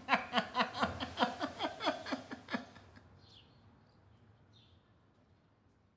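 A person laughing in a quick, even run of short 'ha' syllables that fade away over about three seconds, followed by a few faint high chirps.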